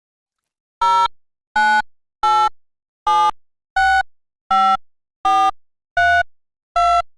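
A series of nine short electronic beeps, evenly spaced at a little under one a second, their pitch shifting from beep to beep. They start about a second in, after dead silence.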